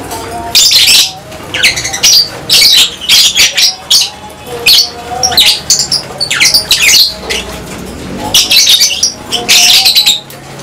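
A colony of lovebirds calling: many shrill, short squawks and chirps overlapping in quick succession.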